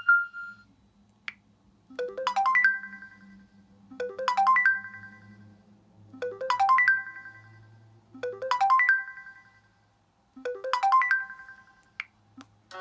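LG Spirit phone ringtone: a short, quick rising run of bell-like electronic notes that rings out and fades, repeated five times about every two seconds.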